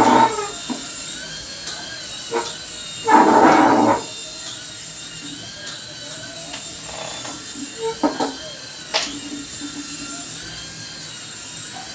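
Small electric motors of a hand-sensor toy flying-ball helicopter, a steady high whine that wavers slightly in pitch as the toy rises and dips over a hand. A loud burst of voice comes about three seconds in, and a sharp click about nine seconds in.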